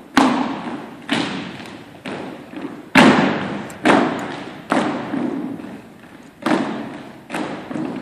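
A drill team's feet stomping in unison on a hardwood gym floor, sharp strikes about once a second with the loudest about three seconds in, each ringing out in the gymnasium's echo.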